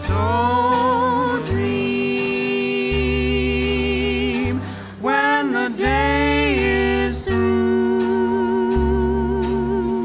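Live swing-jazz band playing: a woman and a man sing together at one microphone, holding long notes with vibrato over archtop guitar, drums and a walking bass line.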